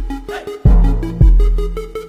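Electronic dance music with heavy bass kicks and quick, short synth notes.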